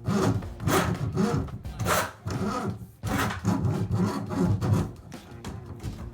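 Irregular rasping, scraping strokes, about one or two a second over a low rumble: a plumber's drain-cleaning cable working through a clogged drain line.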